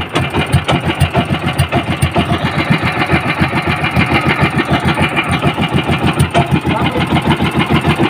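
Small gasoline engine running steadily with an even pulsing beat, being test-run to condition it before going to sea.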